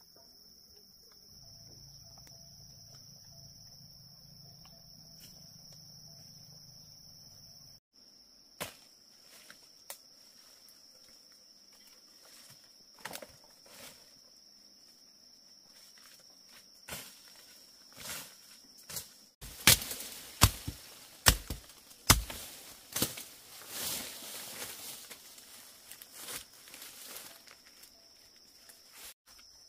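A steady, high-pitched insect drone, with a low hum under it for the first few seconds. From about a quarter of the way in come scattered sharp knocks and rustles, thickest and loudest in a run of clacks a little past the middle.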